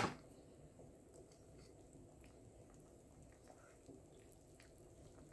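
Near silence: faint room tone, with one sharp click right at the start and a faint tap about four seconds in.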